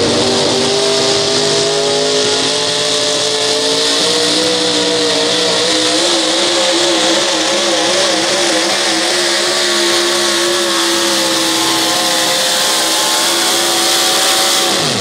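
Supercharged four-wheel-drive pulling truck's engine at full throttle, dragging a weight-transfer sled. The pitch climbs at first, wavers up and down mid-pull as the truck bounces for traction, then drops sharply at the very end as the throttle is shut off.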